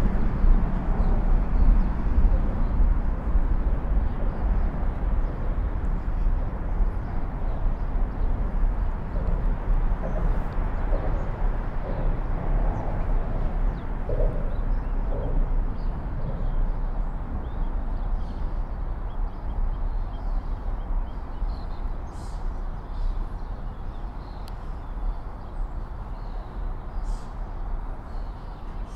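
Outdoor city ambience: a steady low rumble of distant traffic, with small birds chirping now and then, more often in the second half.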